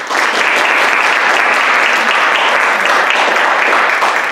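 Audience applauding steadily, the clapping breaking out all at once at the close of a talk.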